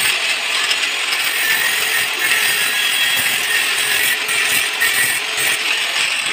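A power tool running steadily with a loud, even hiss.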